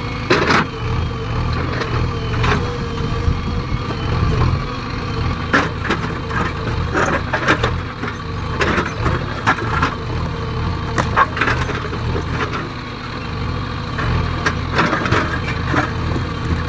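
JCB 3DX backhoe loader's diesel engine running under steady load, with irregular clanks and crunches from the bucket digging and dumping earth.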